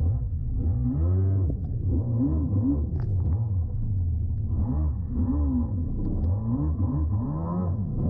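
Yamaha SuperJet stand-up jet ski's two-stroke engine revving up and down again and again as the rider works the throttle, sounding dull and muffled.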